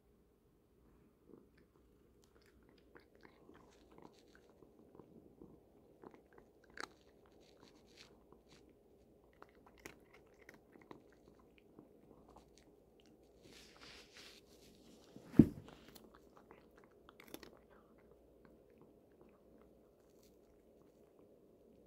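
Cat chewing dry Temptations cat treats: many small, irregular crunches. A single sharp thump, the loudest sound, comes about two thirds of the way through.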